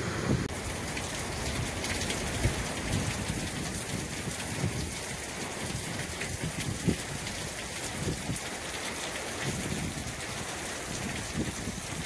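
Steady hiss of rain and rushing monsoon water, with irregular low buffeting beneath it.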